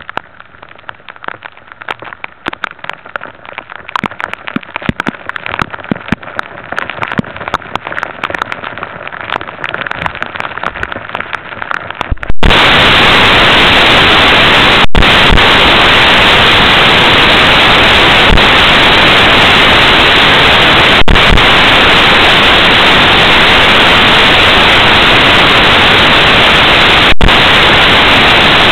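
Raindrops pattering and crackling close to the microphone. About twelve seconds in this switches suddenly to a loud, steady static-like hiss, broken by brief dropouts every six seconds or so.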